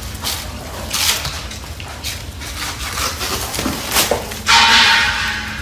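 Young wild boars feeding on leaves, with small rustling and chewing clicks. About four and a half seconds in, one of them gives a loud harsh squeal lasting about a second.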